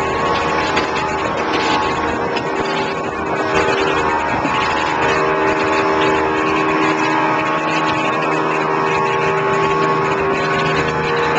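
Contender 27 center-console fishing boat running at speed offshore: a steady outboard engine drone over wind and rushing water.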